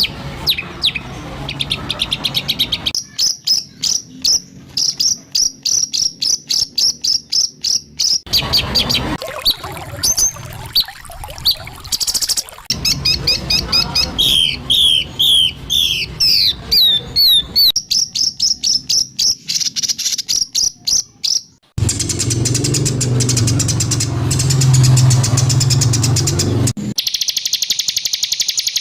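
Spliced recordings of songbirds giving harsh, rapid-fire repeated calls, trills and sharp chirps: 'tembakan kasar' used as tutor song for white-rumped shamas. The recording switches abruptly every few seconds, and for about five seconds in the second half a low hum runs under the calls.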